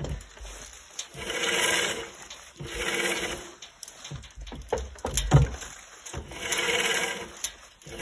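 Woodland Mills HM122 band sawmill's blade wheel turned slowly by hand, giving three drawn-out squeals with a few knocks between them. The owner doesn't remember the sound from before and puts it down to the blade dragging.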